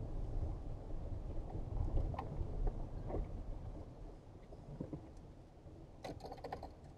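Pickup truck driving slowly along a gravel dirt track: a low rumble of engine and tyres with a few small clicks and knocks, getting quieter about four seconds in.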